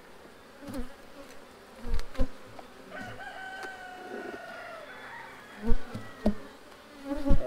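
Honeybees buzzing around an open hive while a hive tool pries at the wooden frames, giving several sharp knocks. A rooster crows once in the middle.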